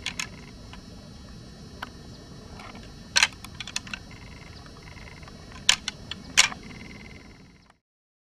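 Outdoor field recording: a steady low rumble and hiss, broken by a handful of sharp clicks and snaps spread through it. The loudest snaps come about three seconds in and twice more later on. The sound cuts off abruptly to silence near the end.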